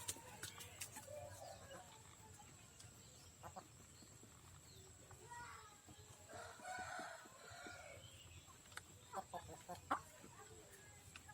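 Faint chickens clucking, with one rooster crow of about two seconds near the middle. A few sharp clicks come close to the end.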